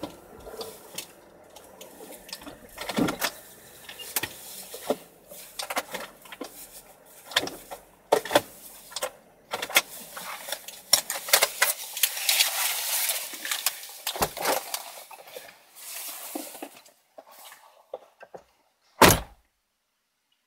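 Irregular rustling, clicks and knocks of things being handled inside a parked car, denser for a few seconds in the middle, then one loud thump near the end after which the sound cuts out.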